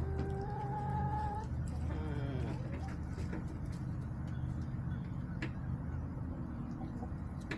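Backyard hen calling: one drawn-out, even-pitched note lasting over a second, then a shorter call falling in pitch about two seconds in. A steady low hum and scattered light clicks run underneath.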